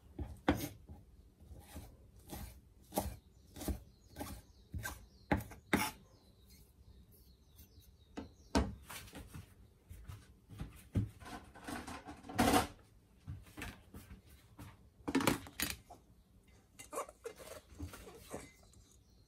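Kitchen utensils and dishes being handled: a string of sharp, uneven knocks and clinks, about one a second, with a denser bout of clattering midway.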